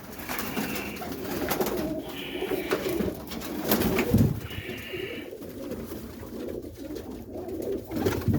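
Domestic roller pigeons cooing in a loft, a steady overlapping murmur of low coos that swells a little now and then.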